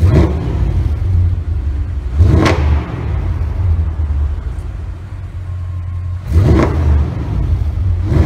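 Audi RS6 Performance twin-turbo 4.0 V8 with sport exhaust idling with a steady low burble. It is blipped four times in short revs that rise sharply and fall straight back to idle. The car is stationary in an enclosed concrete parking garage.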